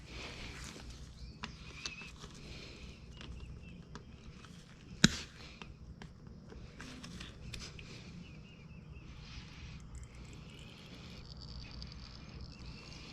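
Scattered light clicks and clinks of hand work on a motorcycle during an oil-filter change, with one sharp knock about five seconds in and faint chirping in the background.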